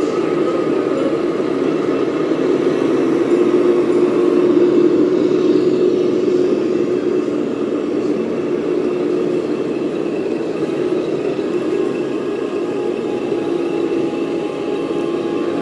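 Scale RC trucks' onboard sound units playing a steady diesel-engine drone as a model tractor unit drives along the layout.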